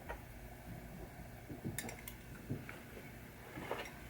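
A few light metallic clinks and taps as small metal parts and hand tools are picked up and set down on a workbench.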